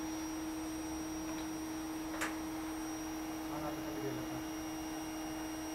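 A steady hum at one pitch, with a single click about two seconds in and faint murmuring near the middle.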